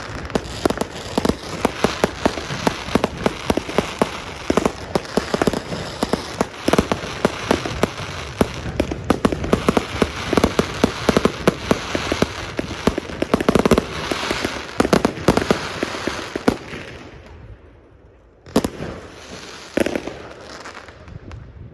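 Fireworks going off in a dense, rapid barrage of bangs and crackles. The barrage dies away about seventeen seconds in, and two more single bangs follow near the end.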